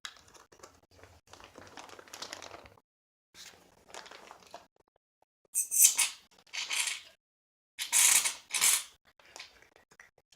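Quiet handling and scraping, then loud hissing bursts of aerosol shaving cream being sprayed from the can: one about five and a half seconds in, and a pair about eight seconds in.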